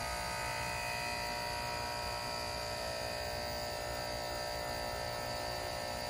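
2023 TGM (Midea) 2-ton DC inverter central air-conditioner condenser starting up: a steady electric hum with several thin, high, whining tones held on top, as the inverter unit slowly ramps up.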